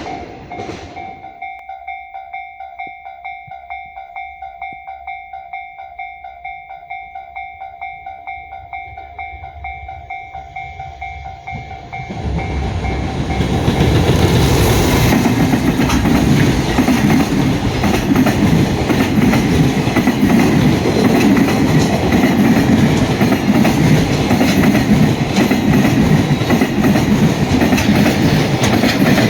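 Japanese level-crossing warning bell ringing, a rapid run of repeated electronic dings. About twelve seconds in, a freight train reaches the crossing and runs past loudly, with steady wheel noise and clickety-clack over the rail joints covering the bell.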